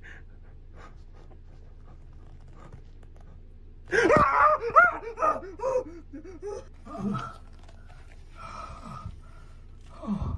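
A man yelling "ahh" in fright, loud and wavering in pitch, about four seconds in, followed by short gasps and panting.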